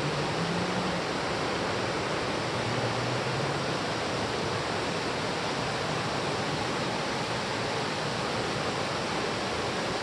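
Shallow mountain stream flowing over rocks, a steady rushing of water.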